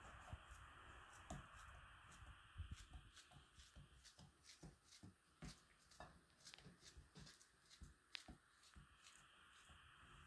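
Faint hand-handling sounds of a banana being peeled: many small irregular ticks and soft tearing of the peel, over a quiet steady hiss.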